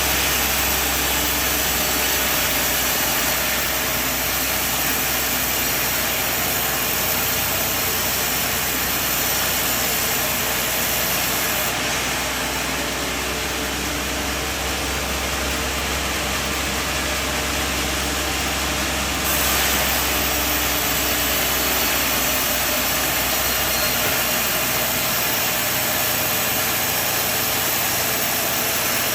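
Sawmill machinery running steadily: a constant low engine hum under a loud, even wash of noise, which changes character abruptly about 12 and 19 seconds in.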